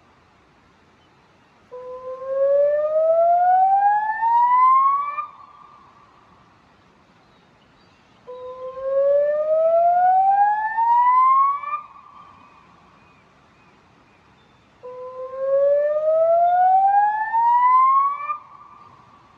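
Electronic river warning siren sounding through Bosch LBC-3406 horn loudspeakers in its warning activation pattern: rising whoops, each climbing steadily in pitch for about three and a half seconds before cutting off with an echo trailing away. The whoop repeats three times, about every six and a half seconds, with a lull between each.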